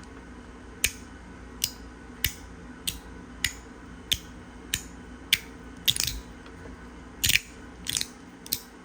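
Magnetic fidget slider snapping back and forth along its track, a sharp metallic click at each end about every half second to second, with a few clicks coming in quick pairs.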